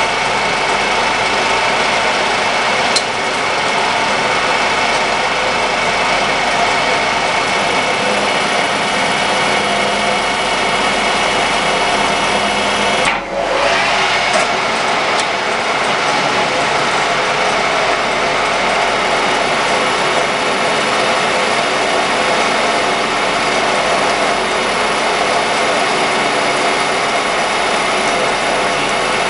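Milling machine running with a face-milling cutter cutting across a laminated steel block: a steady machining noise with a whine. It drops briefly about halfway through.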